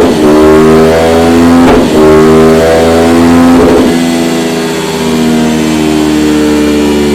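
Honda VTR 1000 SP1's 999 cc V-twin engine running through an aftermarket Dominator exhaust, pulling hard with its pitch climbing steadily, broken by quick drops about every two seconds like gear changes. From about four seconds in it settles to a steadier, slightly quieter note.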